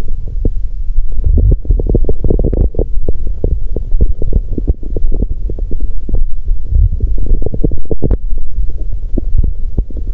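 Stomach gurgling and rumbling, close-miked against the belly: a dense, irregular run of low gurgles and pops over a deep rumble.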